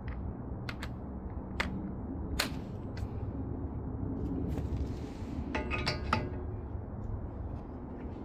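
Scattered metallic clicks and clinks of hand tools against metal, with a short run of ringing clinks about six seconds in, over a steady low hum.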